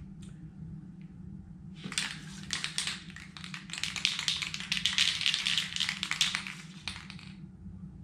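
Aerosol spray paint can being shaken, its mixing ball rattling rapidly for about five seconds, starting about two seconds in.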